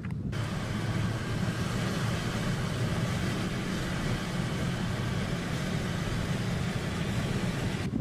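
Car noise from inside the cabin while driving: a steady low engine and road rumble with a constant hiss over it. It cuts in abruptly a moment after the start and changes abruptly just before the end.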